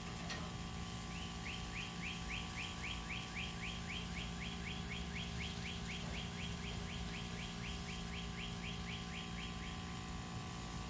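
A bird singing a long, even series of short rising whistled notes, about four a second, which stops near the end, over a steady low hum.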